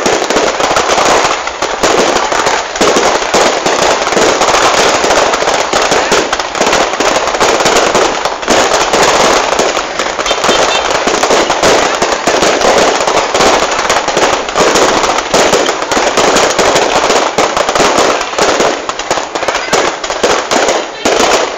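Fireworks display: a loud, dense barrage of overlapping bangs and crackles that runs on without a break.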